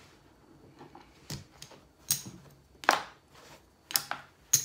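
Casino poker chips clicking as they are counted out and set down on a felt table while a large chip is broken into $25 chips: a handful of sharp clicks, the loudest about three seconds in and near the end.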